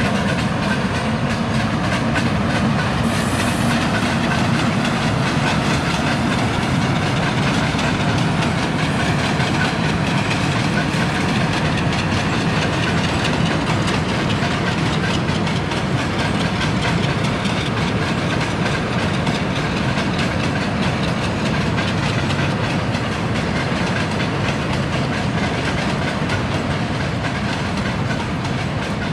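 A diesel engine running steadily, low-pitched and unchanging in level.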